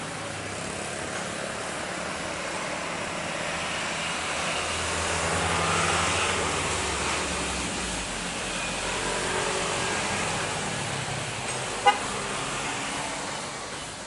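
Road traffic passing, swelling about six seconds in and easing off, with one short, sharp vehicle horn toot near the end.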